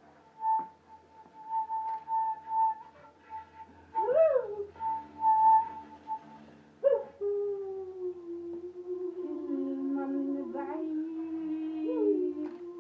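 Slow, sparse music of long held notes: a high sustained note with a swoop up and down about four seconds in, then, from about halfway, a lower held line that slides slowly downward, with a rising slide near the end.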